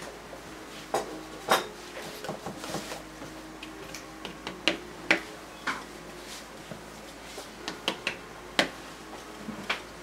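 Irregular light clicks and knocks of oil-painting tools as brushes are dabbed at the canvas and tapped against the palette and jars, about a dozen over the stretch, with a few louder taps.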